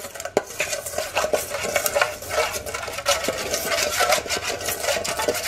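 A metal spoon stirring a thin oily dressing of garlic, spices and lime juice in a stainless steel bowl: quick, irregular scrapes and light clinks of spoon against the metal bowl.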